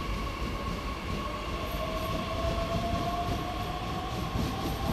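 A DB class 442 Talent 2 electric multiple unit pulling away, its motor whine rising slowly in pitch as it gathers speed, over a low rumble of wheels on rail.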